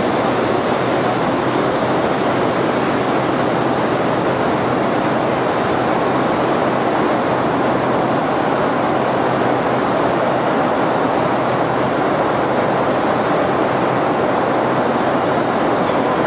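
Loud, steady cabin noise inside an aircraft flying parabolic zero-g manoeuvres: an even rush of engines and airflow that does not change.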